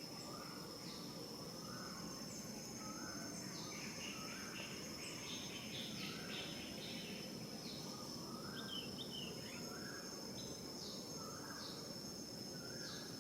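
Outdoor ambience: a steady high-pitched insect drone, with birds calling over it in short, repeated notes and a burst of busier chatter partway through.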